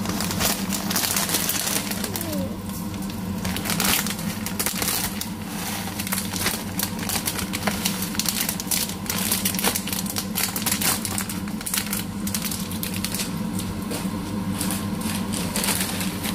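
Dry pancit canton noodles tipped from a plastic bag into a hot wok: the plastic crinkles and the brittle noodles crunch over the crackle of sizzling meat and vegetables, with a steady low hum beneath.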